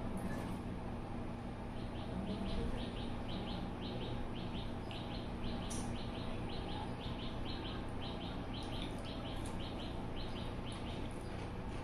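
A bird chirping over and over in short high notes grouped in quick pairs, a few a second, over a steady low hum. A few faint sharp clicks come in between.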